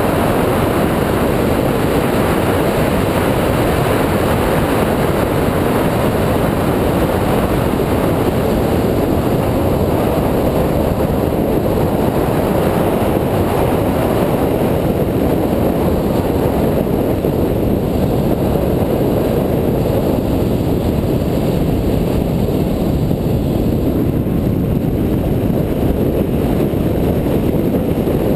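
2004 Mini Cooper S driven at speed: a steady, loud rush of wind over the camera mounted outside the car, with engine and tyre noise beneath it.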